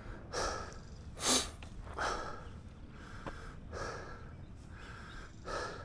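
Heavy breathing of a winded mountain biker, quick breaths in and out about once a second, the strongest a little over a second in.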